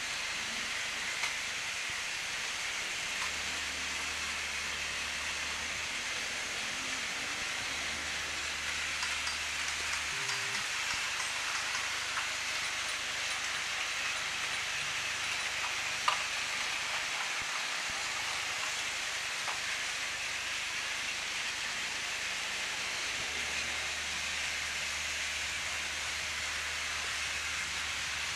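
Motorized Thomas & Friends toy train running, a steady whirring hiss of its small battery motor and wheels on plastic track, with a sharp click about 16 seconds in.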